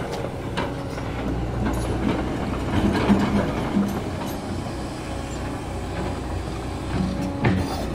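SANY SY215C crawler excavator's diesel engine running steadily as the machine crawls down a gravel stockpile, its steel tracks clanking now and then.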